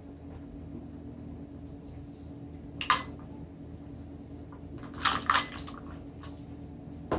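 Measuring spoons on a ring clicking and knocking while salt is measured out: one sharp clack about three seconds in, a quick cluster of knocks around five seconds, and one more near the end, over a steady low hum.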